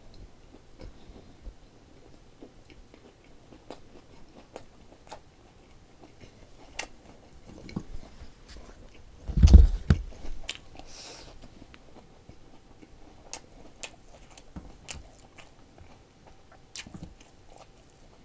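Close-miked chewing and biting of a lettuce wrap of boiled pork and garlic, with many small wet mouth clicks. There is a loud low thump about nine and a half seconds in.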